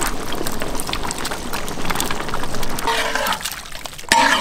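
Sliced tomatoes and green chillies tipped from a steel plate into a large pot of beef simmering in water, splashing into the bubbling broth.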